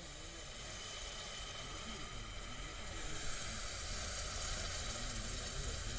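Hot iron hissing and sizzling as it is quenched in water. The steady hiss grows a little louder and brighter about halfway through.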